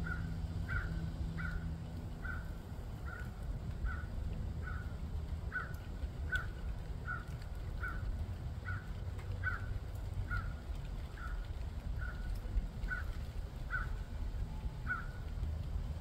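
A bird calling one short note over and over, evenly, about once every 0.8 seconds, over a low steady rumble.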